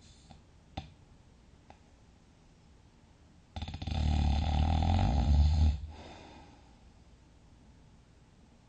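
A sleeping person snores once, loudly, for about two seconds, starting a little past three seconds in, after a quiet stretch of soft breathing with a small click near the start.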